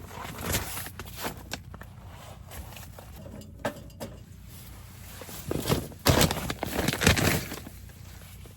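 Charcoal being loaded into a small wood stove: scattered clatters and rustling, then a louder run of clattering about six to seven seconds in.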